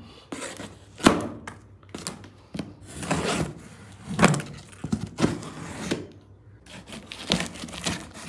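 Cardboard box being opened and handled by hand: scattered knocks and thuds of the box and flaps, with rustling of the packaging between them.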